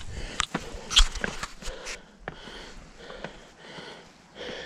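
A hiker's heavy breathing and sniffing, out of breath from the uphill climb, with a few sharp knocks in between.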